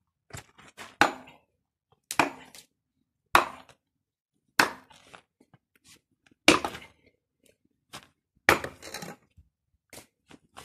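Sledgehammer striking the cast-iron housing of a large electric motor: about six heavy, sharp knocks, a second or two apart, with small clinks between them. It is being beaten to crack the cast iron and knock the end cover off.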